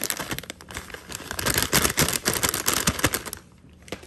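Plastic bag of shredded Parmesan cheese crinkling as it is shaken out over a bowl of pasta, with a dense crackle that stops about three seconds in.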